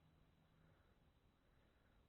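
Near silence: faint recording hiss.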